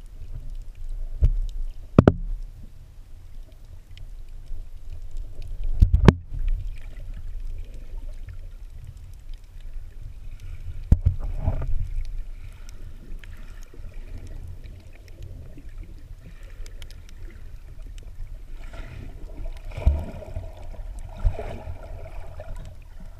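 Muffled underwater sound of moving seawater: a steady low rumble with a few sharp clicks or knocks scattered through it.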